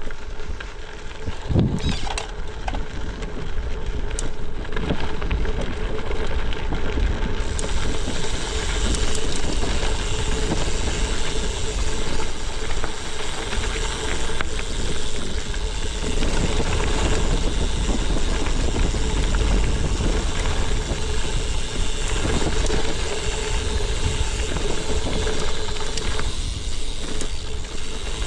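Gravel bike riding over a dirt and gravel fire road: a steady loud rush of tyres rolling and crunching on loose gravel, with low wind rumble on the microphone. The noise turns brighter and hissier about seven seconds in and stays so.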